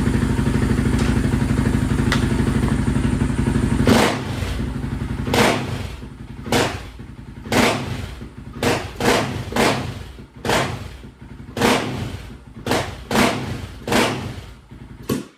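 Honda TRX700 ATV's single-cylinder engine idling steadily, then from about four seconds in blipped in short quick revs roughly once a second, about a dozen times, before the sound cuts off suddenly. The engine runs with its air filter removed, and the owner feels it is still a little rich on the bottom end.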